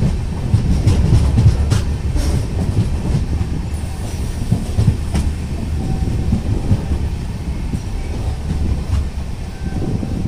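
Bhagyanagar Express passenger train running on the line: a steady low rumble of the coach and wheels, with a few sharp clicks from the wheels over the rails.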